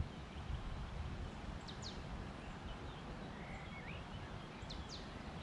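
Quiet lakeside ambience: a steady low rumble of wind on the microphone, with a bird calling twice, each call a pair of quick high downward sweeps, and a short lower chirp between the calls.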